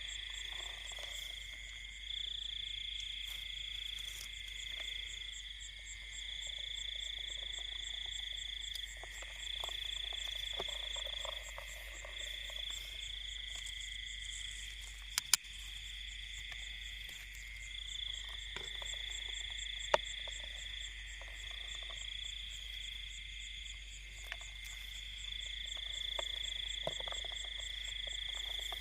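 Night chorus of insects and frogs in rice fields: a steady high shrill trilling that swells and eases slightly, with a faster pulsing trill above it. A few sharp clicks break in, the loudest about 15 and 20 seconds in.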